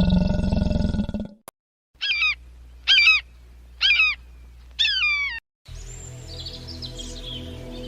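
A loud, low honking call that breaks off about a second in. After a brief silence come four short, high-pitched animal calls about a second apart, each wavering and falling in pitch. Soft background music starts near the end.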